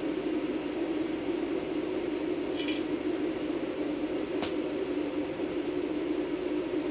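A steady low hum with hiss, like a fan running in the shop. Over it, a single light metallic clink about a third of the way in as a thin brazing filler rod is laid down on the steel welding table, then a faint sharp tick a couple of seconds later.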